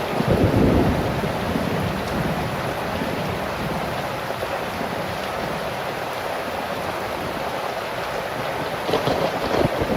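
Heavy rain pouring steadily, with strong wind. A low rumble swells up at the start and again near the end.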